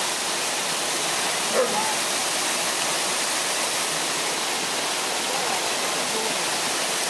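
Waterfall pouring steadily over rocks into a pool: a constant, even rushing hiss. About a second and a half in there is one brief short sound over it.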